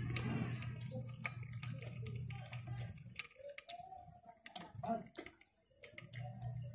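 Irregular small clicks and sticky crackles as fingers break open stingless bee honey pots over a steel bowl. A low steady hum runs underneath and drops out for a few seconds in the middle.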